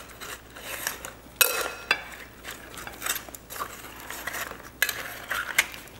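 Metal tongs clinking and scraping against a glass mixing bowl while tossing sliced sweet potatoes in a creamy mixture: irregular clicks and knocks, the loudest about one and a half seconds in.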